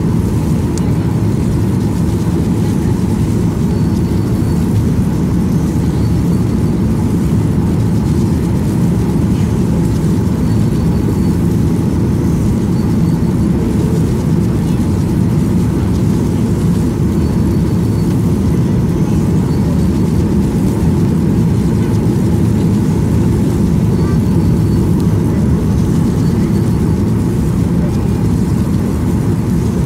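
Steady airliner cabin noise, the engine and airflow rumble heard from inside the cabin, heavy in the low end, as the plane descends on approach to landing.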